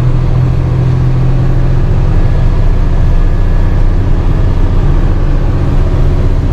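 Diesel engine of a Class A delivery truck and road noise heard inside the cab, a steady low drone while cruising at highway speed.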